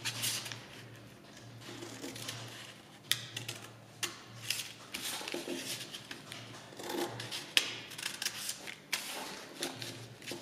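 Scissors making a series of short, sharp snips into folded paper, cutting a small slit into each point of the paper.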